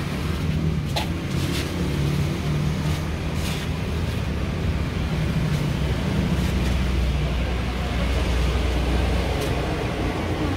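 Steady low rumble of road traffic and engines going by, with a few faint clicks over it.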